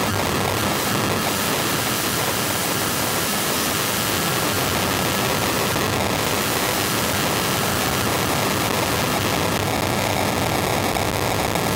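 Dense, steady static hiss with a few faint steady tones, clearer near the end: mobile-phone base-station radiation made audible through a high-frequency (electrosmog) detector.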